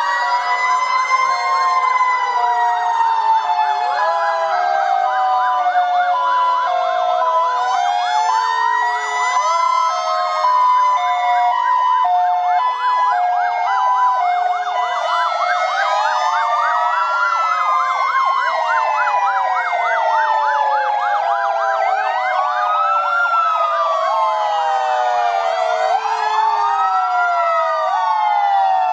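Sirens of several fire engines and rescue vehicles sounding together as they pass slowly. Slow rising and falling wails overlap with a fast yelp and a siren switching between two notes.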